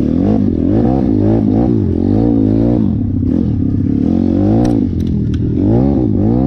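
Single-cylinder four-stroke engine of a 150 cc YX pit-style dirt bike under riding load, the revs climbing and dropping again and again as the throttle is worked over rough ground. A few sharp clicks come around five seconds in.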